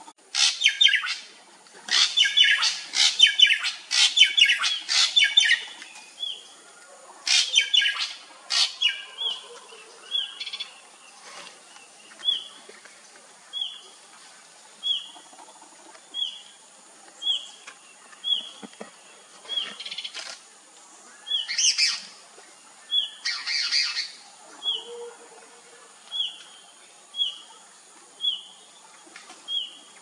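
Wild birds calling: bursts of loud, rapid chirping through the first nine seconds and again a little after twenty seconds. A single short, falling note repeats about every second and a quarter from about ten seconds in. A steady high hiss runs underneath.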